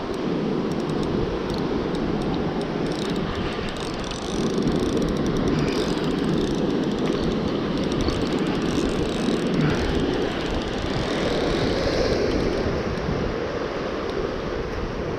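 Wind buffeting the microphone over surf washing on the rocks, a steady low rumbling noise that dips briefly about four seconds in.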